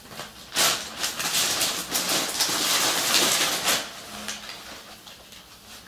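Rustling of clothes being picked up and handled, loudest from about half a second to four seconds in, then quieter.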